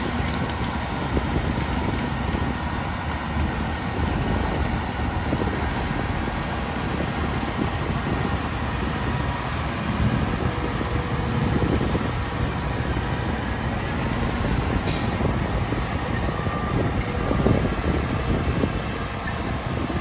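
Diesel engines of a tipping dump truck and a crawler bulldozer running together, a steady dense rumble, with a brief sharp click about fifteen seconds in.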